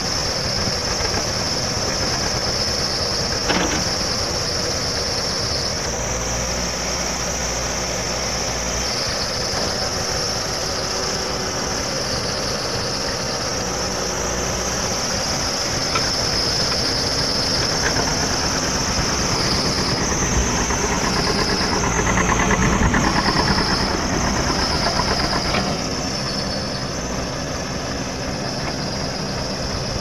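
Tractor diesel engine running steadily as it pulls a trolley, growing louder for a few seconds past the middle, with a single sharp click early on.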